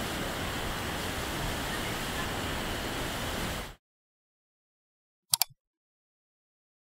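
Steady roar of falling water at Victoria Falls, cutting off abruptly a little under four seconds in. After a silence, a quick mouse-click sound effect clicks twice.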